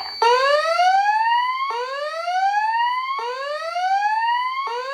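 Voice-evacuation fire alarm speaker sounding its whoop evacuation tone: a rising sweep that starts low, climbs for about a second and a half, then snaps back and repeats, four times over. It is the signal of a reported emergency calling for the building to be evacuated.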